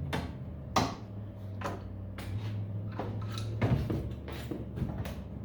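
Sharp metallic clicks and knocks, about seven spread irregularly, from tools and metal parts being handled while a battery charger is taken apart for scrap, over a steady low hum.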